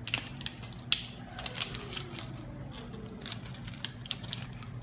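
Hands handling a foam cone and fitting a rubber band onto it: a run of small irregular clicks and rustles over a steady low hum.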